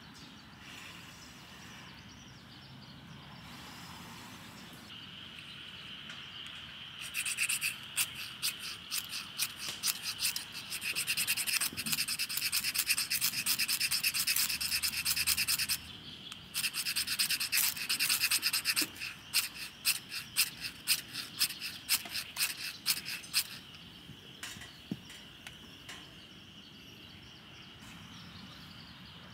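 A cicada calling in two long runs of rapid pulses. The second run trails off into slower, separate pulses that fade away. A faint, steady high insect drone continues underneath.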